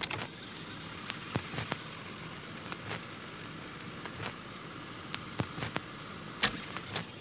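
Steady hiss with irregular crackles and pops, a noise outro at the end of a metalcore track.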